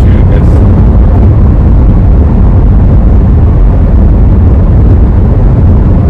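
Steady low rumble inside the cabin of a 2009 Honda CR-V cruising at highway speed: tyre, engine and wind noise, with no changes.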